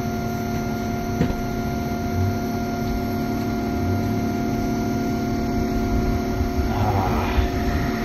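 Midea window air conditioner running just after being switched on, blowing air with a steady hum. A faint click about a second in.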